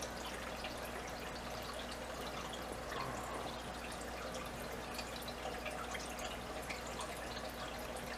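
Aquarium water trickling and dripping steadily, with many small irregular drips over a low steady hum, the running sound of the fish tank's water circulation.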